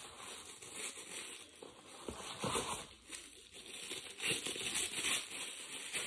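Hands rummaging in a cardboard box and unwrapping a fragrance mist bottle from tissue paper: irregular rustling and crinkling, loudest a little after two seconds and again from about four seconds in.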